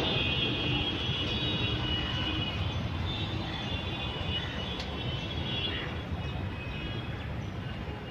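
Steady low rumble of a vehicle, with faint high chirps over it now and then.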